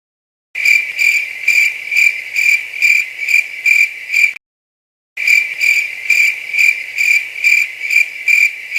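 Cricket chirping sound effect: a steady high chirp pulsing about two to three times a second, played twice with a short silent break between.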